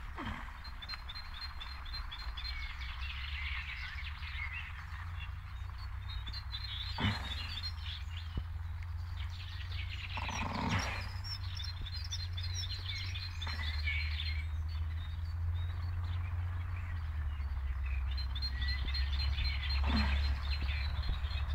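Songbirds chirping, with high trills repeating in several spells, over a steady low rumble. A sleeping horse snores in three short breaths, about a third of the way in, about halfway, and near the end.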